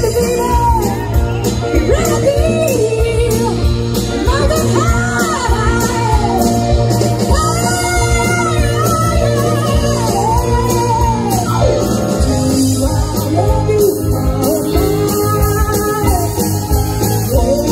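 Live rock band playing: a woman sings lead in long, sliding notes over electric guitars, bass guitar, keyboards and drums.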